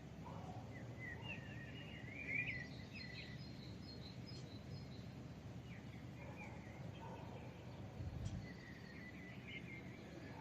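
Bouts of small birds chirping over the steady low hum of a distant city. A brief low thump comes about eight seconds in.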